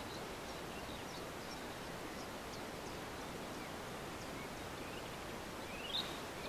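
Quiet riverside ambience: a steady faint hiss with small birds chirping faintly here and there, and a louder rising chirp about six seconds in.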